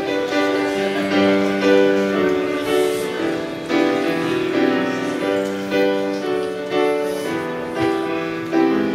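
Grand piano played live: a steady run of held chords, one after another.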